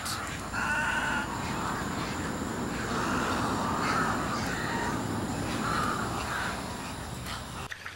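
Birds in a wading-bird rookery calling: about seven short, rough calls roughly a second apart over a steady background hiss, which drops away suddenly near the end.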